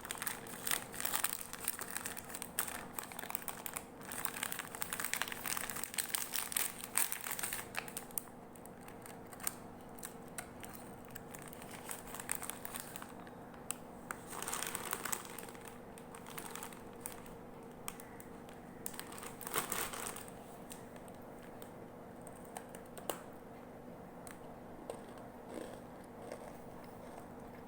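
Crinkling and crackling as cookies are handled close up, dense for the first eight seconds or so, then sparser, in scattered bursts.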